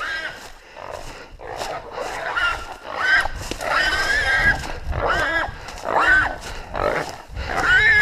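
A hog caught by a catch dog, squealing: a series of loud, high cries that rise and fall in pitch, coming about once a second from a few seconds in.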